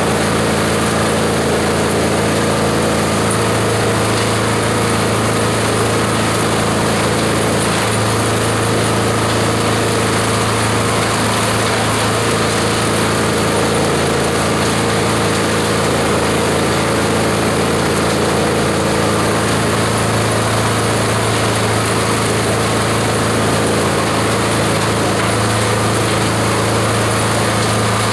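Multi-purpose chopper-shredder running steadily while leafy branches fed into its hopper are chopped up, a loud, even machine noise over a low hum. The hum strengthens and eases several times.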